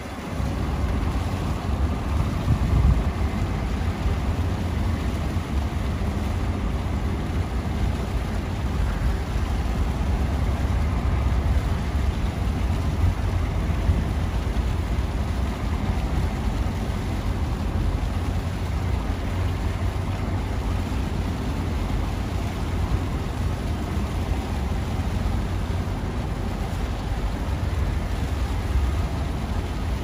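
Steady low rumbling background noise, even throughout with no distinct events.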